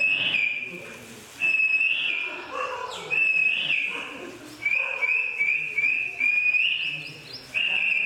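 A man whistling an imitation of birdsong: a string of short, clear, steady whistled notes, several sliding up in pitch at the end, with brief pauses between phrases.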